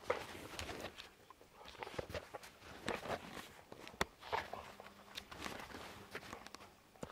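Footsteps walking through snow at an uneven pace, with one sharp click about four seconds in.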